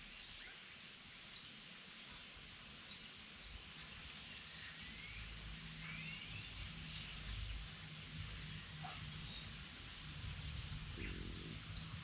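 Forest ambience with several wild birds singing: short chirps and quick rising whistles come and go throughout, over a steady high hiss. A low rumble grows near the end.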